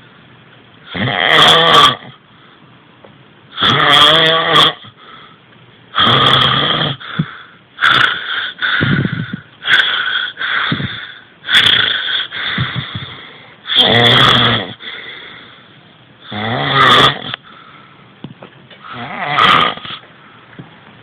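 Loud snoring: a rasping, pitched breath comes about every two seconds.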